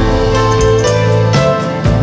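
Background music: a gentle melody of short notes, about two a second, over a held bass.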